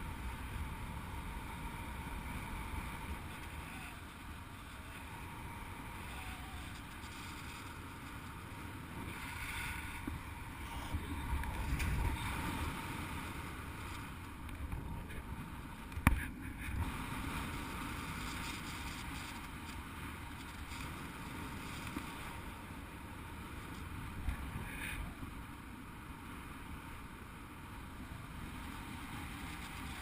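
Wind rushing over the camera of a paraglider in flight: a steady low rumble that swells and eases with the gusts. A single sharp knock comes about sixteen seconds in.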